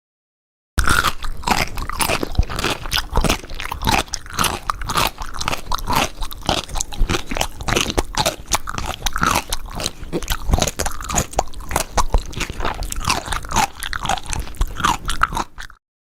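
Close-up chewing and crunching eating sounds, a dense run of wet clicks and smacks with short squeaky bits, fed porridge to a baby. It starts abruptly about a second in and cuts off abruptly near the end.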